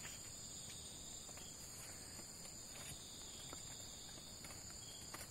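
Faint, steady chorus of insects, a high, even trill that holds one pitch throughout, with a few faint clicks.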